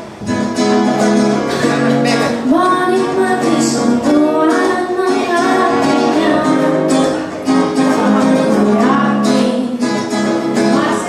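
A woman singing with acoustic guitar accompaniment.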